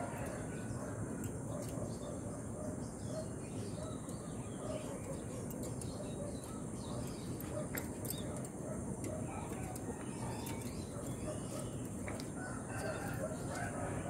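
Zebra doves (perkutut) cooing in short, repeated phrases, over a steady high drone.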